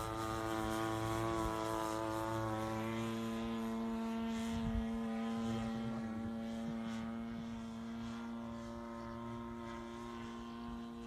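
Engine and propeller of a quarter-scale radio-controlled Sopwith Pup biplane model in flight, a steady droning tone that fades a little over the second half as the model flies farther off.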